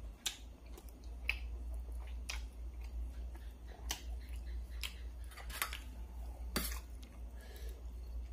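A person chewing food close to the microphone: irregular wet mouth clicks and smacks, the sharpest about six and a half seconds in, over a steady low hum.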